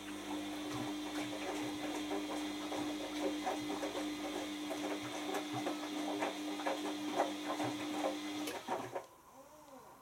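Bosch Maxx 6 washing machine tumbling its wash load: a steady motor hum with the laundry and water knocking and swishing in the drum, stopping abruptly about nine seconds in as the drum pauses.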